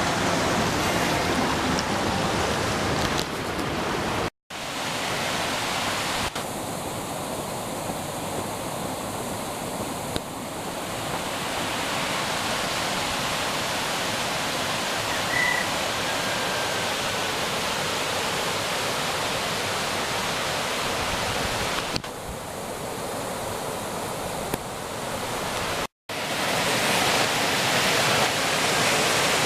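Twin waterfall's falling water rushing steadily, cutting out for a moment twice.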